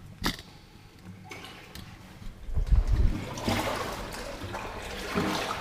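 Footsteps wading through shallow floodwater, sloshing and splashing, getting louder from about three seconds in. A single sharp knock sounds just after the start.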